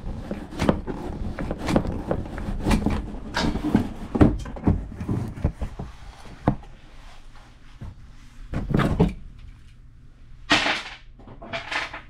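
Handling noise: a run of irregular knocks and clunks, then three short scraping noises near the end.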